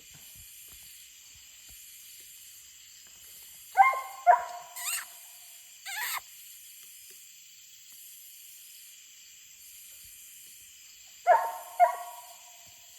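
Coonhound barking at a distance at a treed raccoon: a few barks about four seconds in and two more near the end, over a steady high-pitched hiss.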